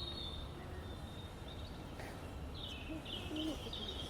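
Songbirds singing in the dawn chorus: a short high whistle at the start, then a run of quick repeated high notes from about two and a half seconds in, over a low steady background rumble.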